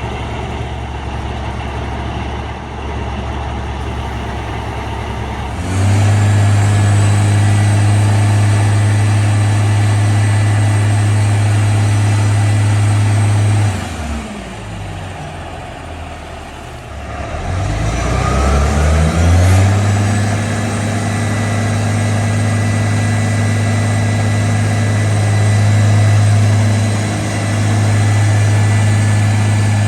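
The Caterpillar C-16 diesel of an Oshkosh Striker 3000 airport crash truck is running. It steps up abruptly from idle to a raised, steady speed about six seconds in. It drops back near the middle, then climbs again and holds the higher speed.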